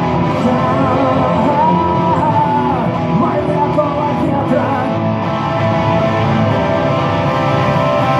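Rock song, with a band and guitars playing a passage without words under a wavering lead melody.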